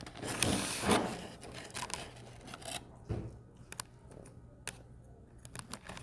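Plastic cutlery and food being handled on a plate: a rustle and scrape in the first second, then a scatter of sharp clicks and taps.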